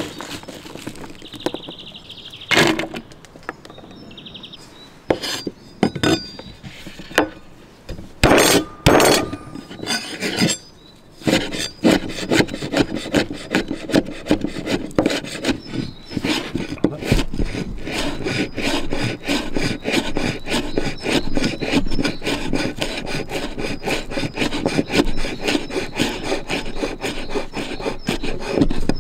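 Kitchen knife cutting garlic on a cutting board: a few separate cuts, then from about halfway through a long run of quick, even chops, roughly four a second.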